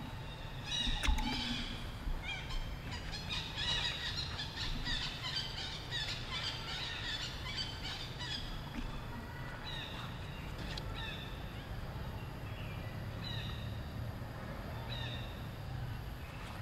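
Short, high-pitched animal calls. Many overlap in quick succession during the first half, then single calls come every second or two, all over a steady low rumble.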